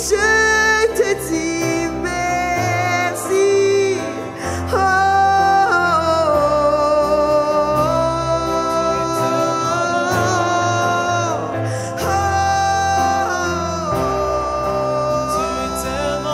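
Live worship song: a woman singing, holding one long note from about five seconds in, over Nord Stage keyboard chords and strummed acoustic guitar.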